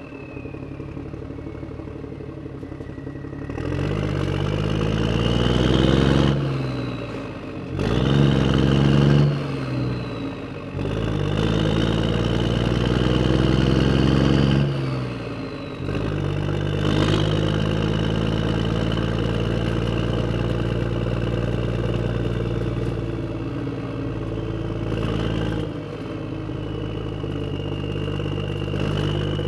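Motor vehicle engine revving up and falling back three times, then running steadily at a fairly even pitch.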